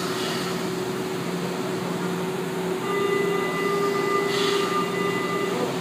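São Paulo Metro train standing at the platform with its equipment humming steadily. About halfway through, a steady high whine joins the hum for a few seconds, and a short hiss of air comes near the end.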